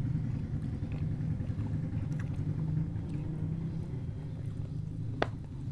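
A steady low engine-like drone, with faint clicks of tableware and one sharp click about five seconds in.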